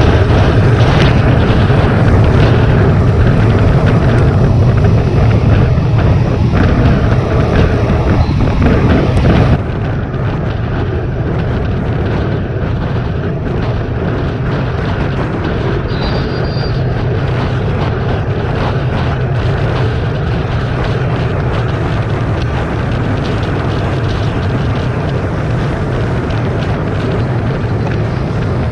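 Heavy wind rush on the microphone of a camera mounted on a road bicycle riding at about 40 km/h, mixed with tyre and road noise. It drops suddenly to a lower, duller level about ten seconds in.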